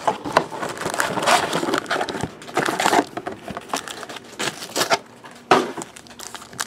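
Cardboard trading-card box being opened and its foil-wrapped card packs lifted out and stacked by hand: irregular crinkling of foil and scraping and tapping of cardboard.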